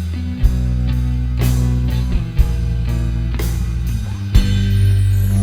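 Rock band playing an instrumental passage: electric guitars and bass holding chords over drums, with a drum and cymbal hit about once a second.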